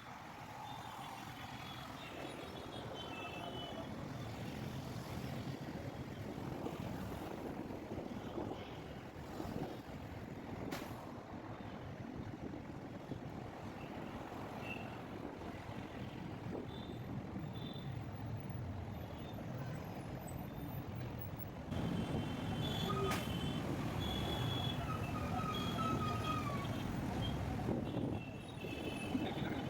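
Road traffic: a steady rumble of vehicle engines and tyres, with scattered short high-pitched tones, growing louder about two-thirds of the way through.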